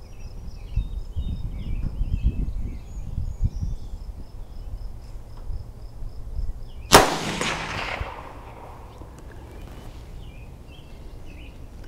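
A single shot from a Mossberg 640 bolt-action rifle in .22 Magnum (.22 WMR), firing a CCI 40-grain round: one sharp crack about seven seconds in, with an echo trailing off over about a second.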